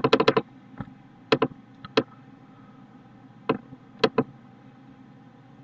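Computer mouse and keyboard clicks as text in a word processor is selected and copied: a quick run of clicks at the start, then single clicks spaced a second or so apart.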